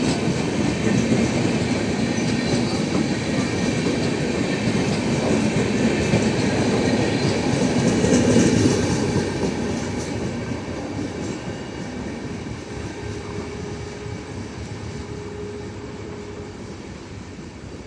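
A passenger train of LHB coaches rolling past, its wheels clattering over the rails. The sound is loudest about eight seconds in, then fades steadily as the train draws away.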